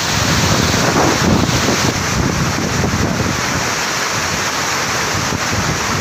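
Jantur Inaar waterfall: a loud, steady rush of water plunging onto rocks and through the rapids below, with wind rumbling on the microphone.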